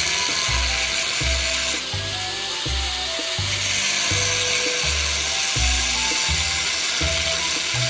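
Angle grinder with an abrasive cut-off disc cutting through a steel tube, a steady high grinding noise that eases about two seconds in and comes back strongly about a second and a half later. Background music with a steady bass beat plays underneath.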